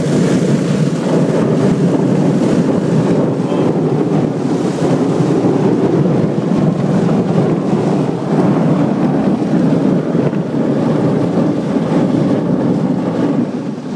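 Heavy spray of water pounding on the car's roof and windows, heard from inside the cabin as a loud, steady rush that cuts off suddenly at the end.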